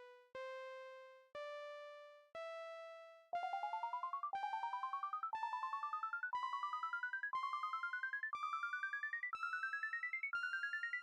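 Computer-generated alarm clock tones from Sonic Pi: one synthesized keyboard-like note a second, each a step higher than the last. About three seconds in, every note also gains a quick rising run of short notes sweeping up through the second, so the sound climbs steadily in pitch.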